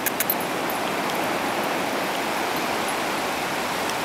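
Steady wash of ocean surf on a sandy beach, with a few light clicks right at the start.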